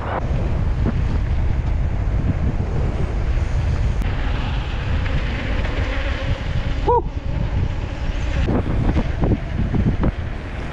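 Wind buffeting the microphone, a steady low rumble. About seven seconds in, a brief high-pitched sound rises and falls once.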